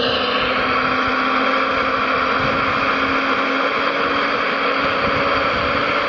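Scale RC Liebherr 970 hydraulic excavator's electric pump and motors running with a steady whine and hum as the machine swings its upper body and boom.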